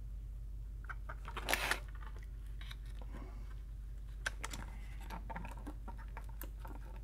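Small clicks, scrapes and rustles of a keyboard circuit board being handled while a desoldered connector is wiggled loose, with a louder rustle about one and a half seconds in and a sharp click after four seconds, over a steady low hum.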